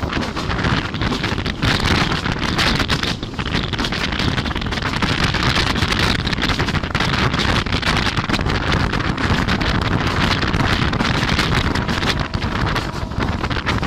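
Wind buffeting the microphone aboard a moving mail train, over the train's steady running noise. Loud and continuous throughout.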